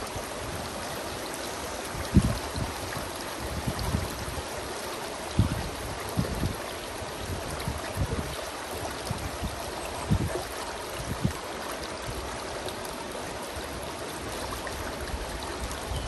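Shallow creek running over a rocky riffle: a steady rushing babble of water. Occasional low thumps sit on top of it, the loudest about two seconds in.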